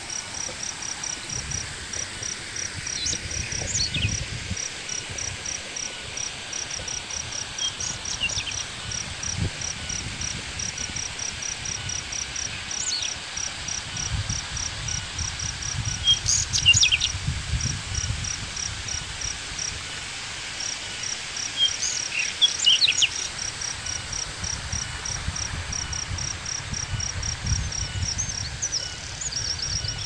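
Tropical forest ambience: an insect calls in a steady high pulsing trill of a few pulses a second, while birds give short chirps and whistled calls now and then, loudest just past halfway and again a few seconds later. A low rumble runs underneath.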